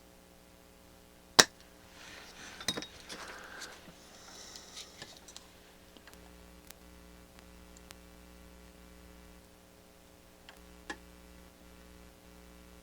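Tools and parts being handled on an electronics workbench: a sharp click, then a few seconds of scraping and rattling with small clicks, and another click near the end, over a steady low hum.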